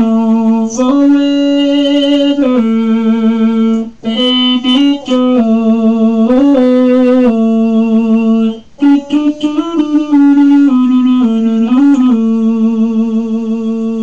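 Keyboard synth played through a talk box for a sound check: loud held notes that step up and down in pitch, with short vowel-like swoops between them and two brief breaks.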